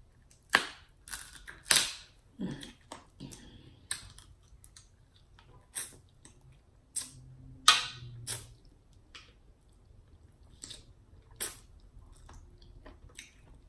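Close-up eating sounds of snow crab legs being bitten open and chewed: irregular sharp clicks and crackles as the shell is worked between the teeth, loudest about two seconds in and again near eight seconds.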